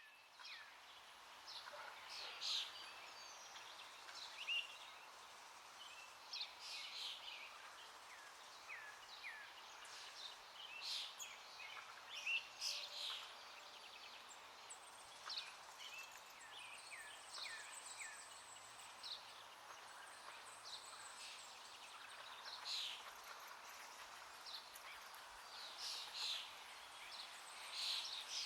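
Songbirds chirping and calling again and again, many short quick notes, over a steady background hiss.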